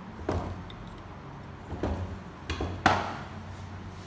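Four sharp knocks and clinks of hand tools and metal parts being handled while the fuel suction fitting is taken off a diesel common-rail high-pressure fuel pump. The last knock, near the end, is the loudest.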